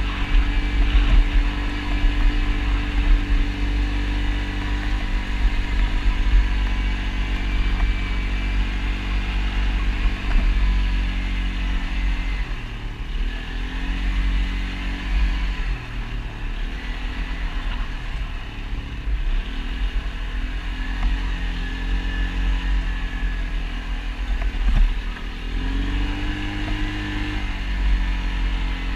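ATV engine running under way, its note dropping as the throttle is eased off and rising again several times midway and once near the end, over a heavy low rumble.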